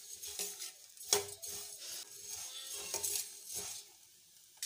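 A steel spoon stirring and scraping dry-roasted flattened rice (poha) around a stainless steel pan, with light clinks of metal on metal; the sharpest clink comes about a second in, and the stirring dies away near the end.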